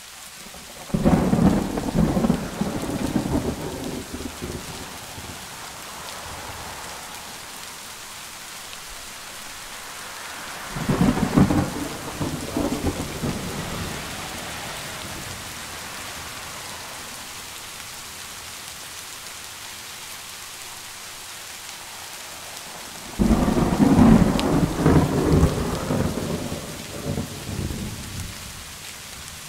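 Steady rain hiss with three rolls of thunder about ten seconds apart. Each starts suddenly and rumbles away over a few seconds; the last is the loudest and longest.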